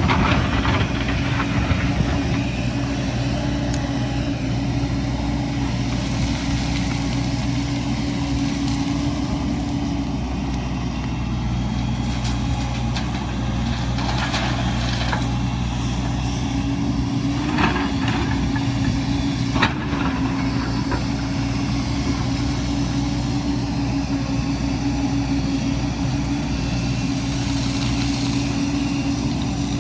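Heavy earthmoving machine's engine running steadily at an even speed, with a few sharp knocks in the middle.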